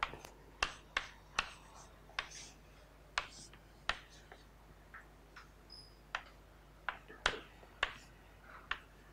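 Chalk tapping and scratching on a chalkboard as lines and letters are drawn: sharp, short taps at irregular intervals, roughly one or two a second, over a low steady hum.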